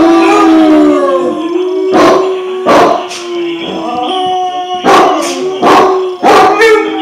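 A basset hound howling in long, drawn-out, wavering howls, with several short, sharp barks breaking in during the second half.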